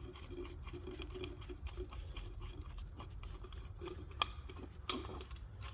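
A few light clicks and small knocks from small parts being handled, sharpest about four and five seconds in, over a low steady background hum.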